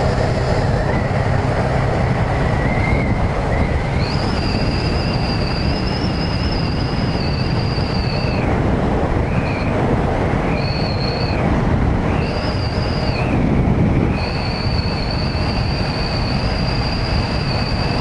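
Yamaha MT-09 motorcycle riding at steady speed on a wet road: a steady rush of wind and tyre noise over the engine. From about four seconds in a thin, high whine rides on top, cutting out and returning several times.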